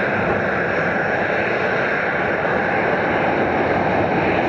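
Steady noise of airliner jet engines running at low power as aircraft taxi and idle on the apron.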